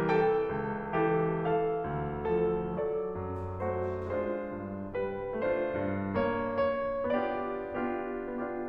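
Background music: a slow, gentle piano melody with distinct struck notes and sustained chords.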